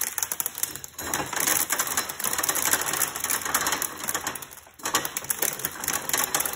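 Hand-cranked corn sheller turning: a dense, rapid clatter of its metal workings and of kernels being stripped off an ear of dried corn. It stops briefly about two-thirds of the way through, then starts again.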